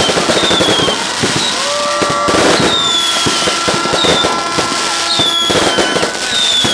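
A fireworks display going off: a dense, continuous run of bangs and crackles, with several short whistles falling slightly in pitch over the top.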